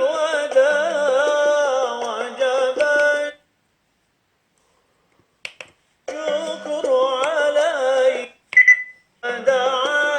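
A small Bluetooth speaker playing a song with singing, with clicks as its buttons are pressed. The music stops for about three seconds near the middle and then resumes, and a short beep sounds just before it starts again near the end.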